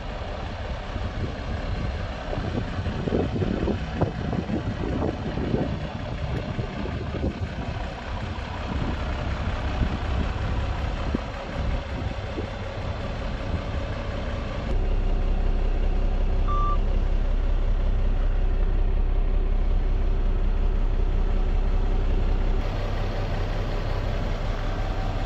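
Renault Premium truck's diesel engine idling steadily; the low rumble grows louder for several seconds from about halfway through.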